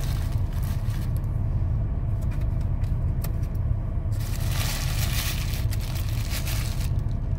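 Paper burger wrapper rustling and crinkling as it is handled, heaviest from about four to seven seconds in, over a steady low rumble inside the car's cabin.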